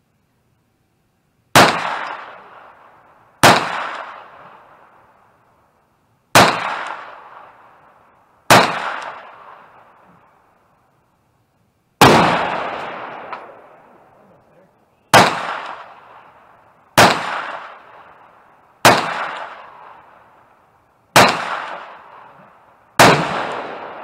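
Ten single shots from a Ruger PC Carbine 9mm semi-automatic rifle, fired slowly one every two to three seconds. Each shot trails off in a long echo.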